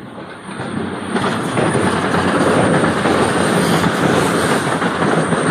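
CrossCountry Voyager diesel train running past on the far line. Its rumble grows loud about a second in and stays loud, with a thin high whine above it.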